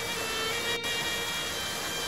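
Background music with long held notes over an even hiss, with a brief dip just under a second in.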